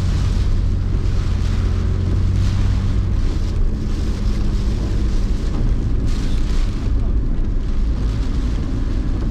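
Typhoon wind buffeting the microphone: a steady low rumble with gusts of hissing, rushing air that swell and fade every second or two.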